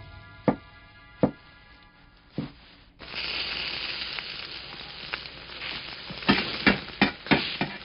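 Three sharp knocks, then, about three seconds in, a sudden steady sizzle as chopped leafy greens hit hot oil in a wok. Near the end a metal spatula clacks against the wok as the greens are stir-fried.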